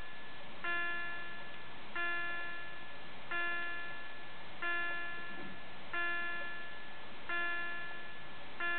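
The DL1 Nixie/VFD clock's electronic chime striking nine o'clock. A single bell note is struck about every 1.3 seconds, seven times here, and each strike fades before the next.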